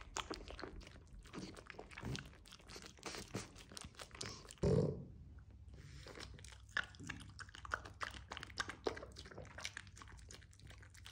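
A pug licking and smacking at soft food on a metal spoon: a quick, uneven run of wet mouth clicks, with one louder thump about halfway through.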